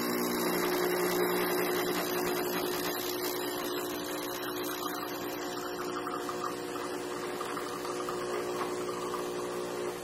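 Nespresso Citiz capsule machine's pump humming steadily as it brews a double shot of espresso, with its milk frother running at the same time.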